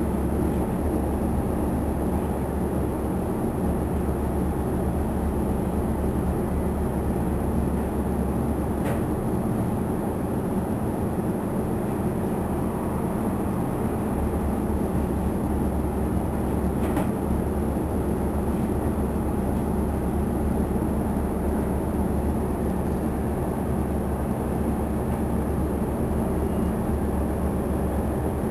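Cabin sound of a 2009 New Flyer DE40LF diesel-electric hybrid bus moving slowly in traffic: its Cummins ISL diesel engine gives a steady low drone. Two faint clicks come about nine and seventeen seconds in.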